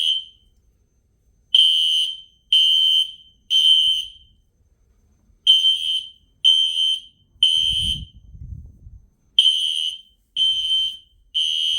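System Sensor SpectrAlert Classic P1224MC horn/strobes sounding their electromechanical horn tone at high volume in the temporal code-3 pattern: three buzzing blasts, a pause, then three more. The pattern repeats three times.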